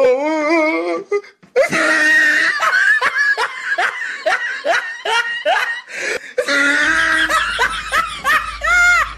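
Loud, hearty laughter in rapid repeated bursts, broken by a short pause about a second and a half in, with a high-pitched squeal near the end.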